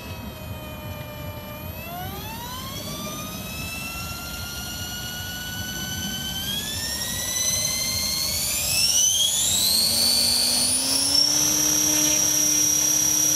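Radio-controlled model helicopter whining, its pitch climbing steadily and getting louder as the rotor speeds up, then holding a steady high pitch near the end.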